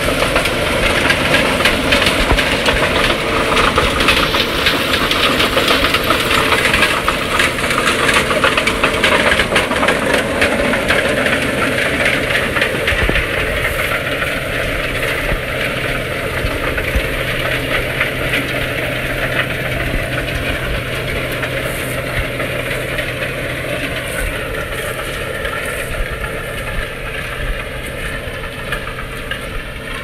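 John Deere 8295R tractor's diesel engine running under load as it pulls a KMC 6-36 peanut digger-inverter through dry, hard ground, with the inverter's continuous rattling and clattering of chains, steel and soil. The sound grows somewhat fainter near the end as the rig moves off.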